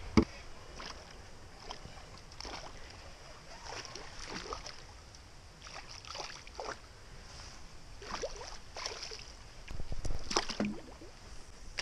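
A small pike splashes back into the river just after the start with one sharp slap. Then light, scattered clicks and knocks of fishing gear against the boat, with a louder bout of handling clatter near the end.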